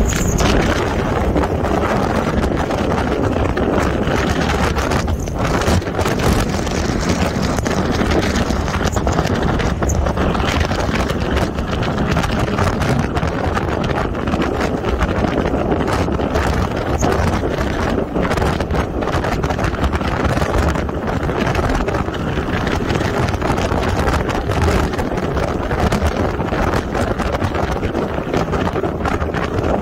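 Wind buffeting the microphone of a camera riding on a moving motorcycle: a loud, steady rush of air, with the motorcycle's running noise underneath.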